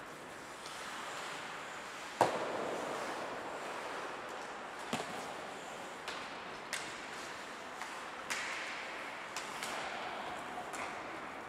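Ice hockey play in an indoor rink: sharp cracks of sticks and puck about seven times, the loudest about two seconds in and ringing off the arena, over a steady hiss.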